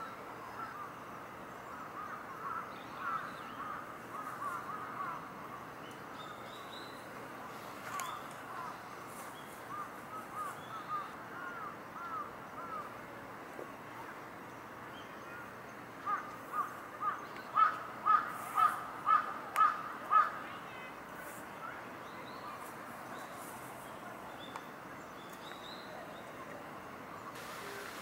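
Wild birds calling. Soft, scattered short notes come through the first half, then a run of about nine loud, evenly spaced calls at about two a second starts a little past the middle.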